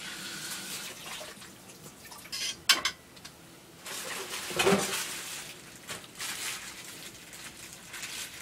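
Rustling and light clattering of household clutter, plastic and bottles being moved, with two or three sharp knocks in quick succession just under three seconds in.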